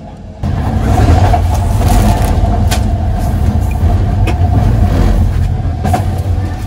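Sleeper train running: a loud, steady low rumble with hiss, and a sharp click about every second and a half. It sets in suddenly just after the start, with rustling of plastic bags being handled.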